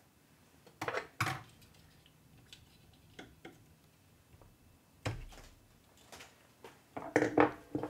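Small plastic parts of a 3D printer's extruder being handled: scattered light clicks and taps of wire connectors and fan housing, with two sharp clicks about a second in and a quick cluster of clicks near the end.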